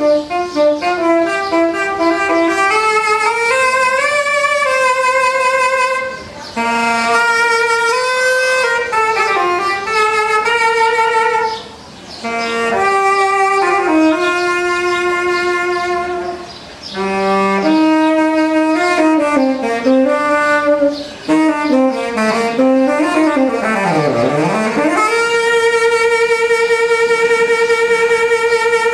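Solo saxophone playing a jazzy melody in phrases, with short breaks between them. About two-thirds through it swoops down in a deep glide and back up, then holds one long note with vibrato.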